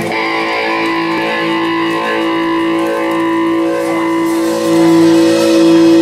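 A band plays a song intro live: an accordion holds long, steady chords over an electric guitar.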